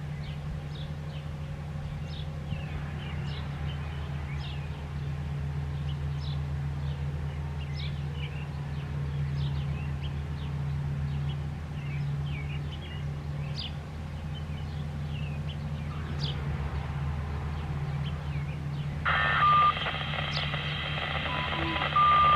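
Birds chirping over a steady low hum. Near the end a scanner radio breaks in with static and a string of short activation tones, ending in a long steady beep: the signal that sets off the siren test.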